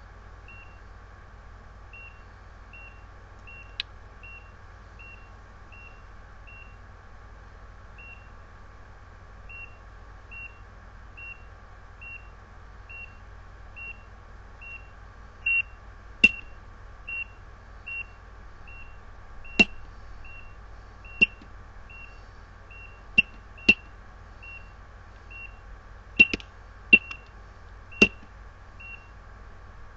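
ECG patient monitor beeping once per heartbeat: a short high tone repeating steadily, about three beeps every two seconds, with a brief gap about seven seconds in. From about sixteen seconds in, several sharp clicks sound, louder than the beeps.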